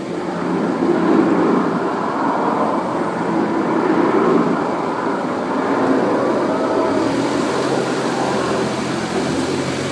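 Ride vehicle moving through a dark attraction: a steady low hum under a dense, continuous wash of noise.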